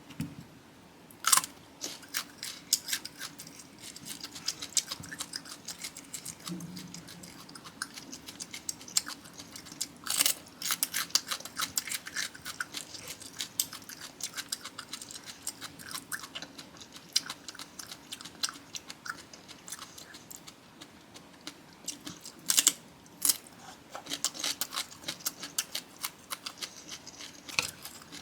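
Close-miked chewing and crunching of Cambodian bamboo shoot and green papaya salad, a run of small wet crackles with a few louder crunchy bites, about a second in, near the middle and after about 22 seconds.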